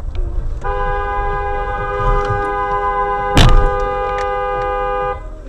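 Car horn held steadily for about four and a half seconds, a two-note blare, with a single loud bang of an impact about three seconds in, a collision, over low road rumble.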